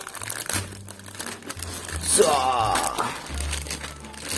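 Thin plastic bag and wrapping crinkling and rustling as a plastic toy sword is pulled out of it, over background music. About halfway through, a brief wavering pitched sound is the loudest moment.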